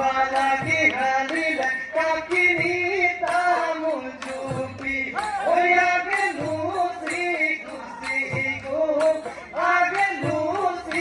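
Live Assamese Bihu music: men and women singing a Bihu song to the beat of dhol drums.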